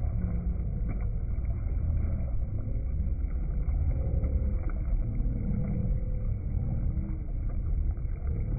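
Steady low rumble heard from aboard a boat on open river water.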